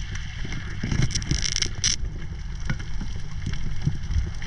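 A steady low rumble of sea water and wind noise on the microphone, with scattered small clicks and two short hissing bursts between one and two seconds in.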